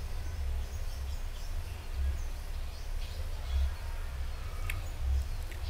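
Low background rumble of room noise from the microphone, with two faint mouse clicks near the end.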